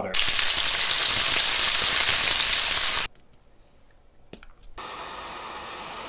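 Heat gun blowing hot air to shrink heat-shrink tubing over a crimped coax connector: a loud, steady hiss that cuts off suddenly about three seconds in. It is followed by two light clicks and a fainter steady hiss near the end.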